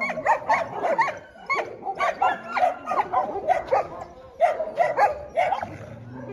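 Several dogs barking and yipping in quick succession, with a woman laughing over them.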